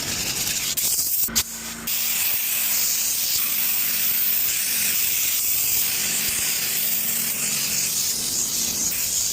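A steady hissing noise, with a few abrupt breaks in the first two seconds.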